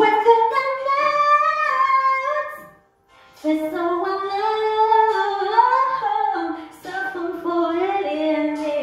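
A woman singing solo vocal runs into a microphone: long, gliding, ornamented notes in three phrases, with a short breath about three seconds in and another near seven seconds.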